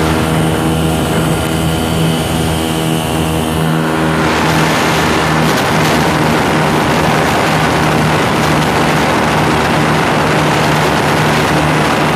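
Ultralight aircraft's engine and propeller running steadily, heard from on board the open aircraft. About four seconds in, a rushing noise swells over it.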